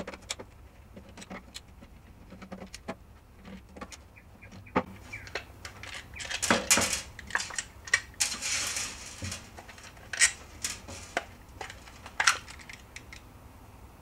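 An old DeWALT nickel-metal-hydride drill battery pack being opened by hand: scattered clicks, knocks and clatter of the plastic case and metal parts. It is busiest from about six to nine seconds in, with a few sharp clicks after that.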